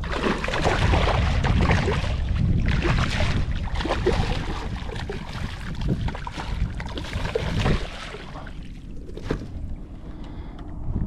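Water splashing and knocks against a kayak's plastic hull, with wind buffeting the microphone; the splashing and knocking die down about eight seconds in.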